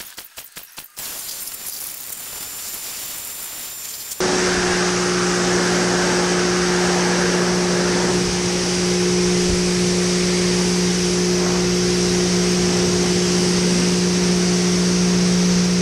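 Greenworks electric pressure washer running, its motor and pump humming steadily under the hiss of the spray striking the steel underside of a dump truck's bed. The hum and spray start abruptly about four seconds in, after a few soft clicks and a lighter hiss.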